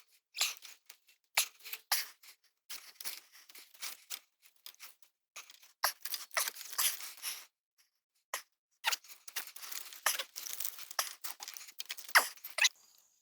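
Irregular rustling and scraping with small clicks close to the microphone: clothing and gear rubbing as a man works his way up a tree with a hunting stand.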